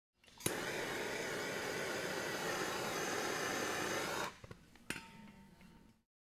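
Handheld gas torch burning with a steady hiss as it heats vinyl wrap film to soften it. It starts with a sharp click and cuts off about four seconds in, followed by fainter sounds and another click.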